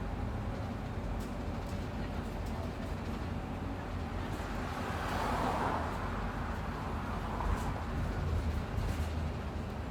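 Interior of a moving bus: a steady low rumble of engine and road noise with faint rattles, swelling briefly about five seconds in.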